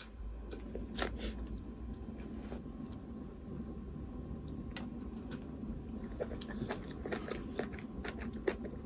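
Close-up eating sounds: chewing, with scattered light clicks of chopsticks against a ceramic plate, over a faint low hum.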